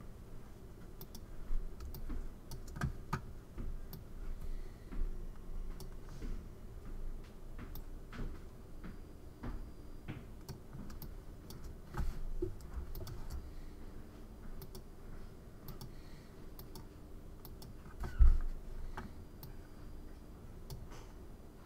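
Irregular clicks of a computer mouse and keyboard, with one louder thump about eighteen seconds in.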